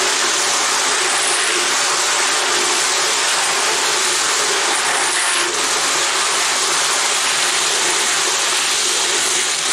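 Faucet water running steadily into a plastic tub while loose brass cartridge cases are stirred by hand in the soapy water, the cases clinking and rattling against each other.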